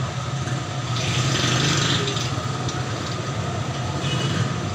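A steady low machine hum, like an engine idling, with a brief hiss about a second in.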